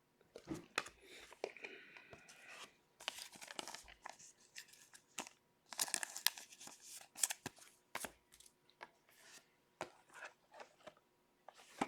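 A 2020-21 Upper Deck Stature hockey card pack being torn open by hand, its wrapper tearing and crinkling in short rustling stretches, with light clicks from the cards being handled.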